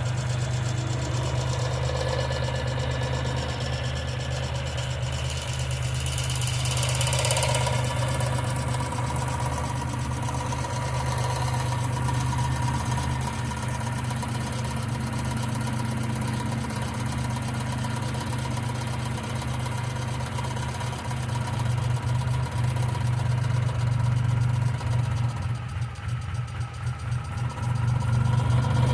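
1995 Geo Metro engine idling steadily, with the ticking of its hydraulic lifters.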